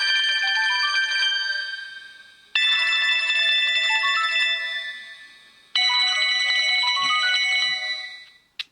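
Sony Ericsson W200 ringtone: a chiming synthesized melody with a short rising run of notes, played three times, each phrase dying away before the next begins.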